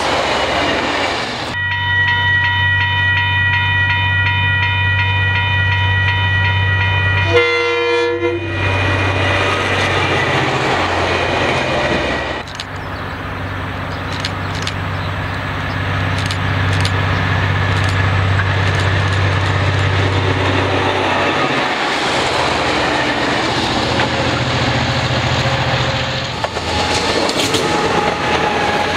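Diesel-electric locomotives of a test train, a DC-class and a DBR-class, running along the line with a steady low engine drone and wheels clicking over the rail joints. For several seconds near the start a locomotive horn sounds long steady notes, briefly broken and changing pitch near the middle of that stretch.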